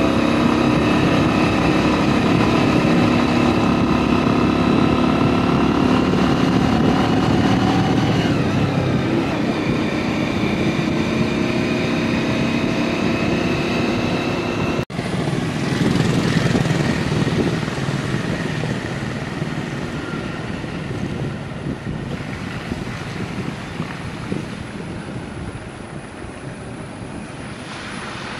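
Motorcycle engine running under way, its pitch rising and falling as the speed changes. About halfway through, a sudden short break gives way to a rushing noise of riding with the engine fainter, slowly growing quieter.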